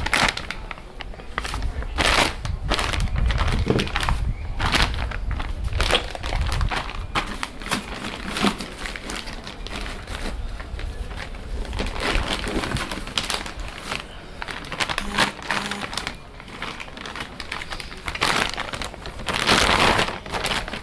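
Plastic wrapping crinkling and rustling irregularly as coilovers are handled and pulled out of their bags in a cardboard box.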